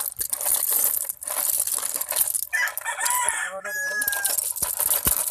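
A rooster crows once, about halfway through, over a loud crackling hiss with many small clicks.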